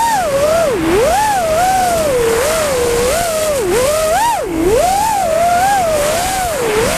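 FPV quadcopter's brushless motors and propellers whining as it flies, the pitch rising and falling about once a second as the throttle changes, over a steady rush of air.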